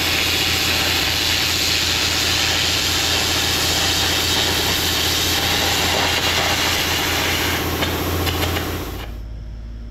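Carbon arc gouging with an ArcAir torch: the carbon rod arcing on the steel of a Caterpillar excavator boom while a 70 psi air jet blows out the molten metal, a loud, continuous hissing crackle. It stops about nine seconds in, leaving a steady low hum.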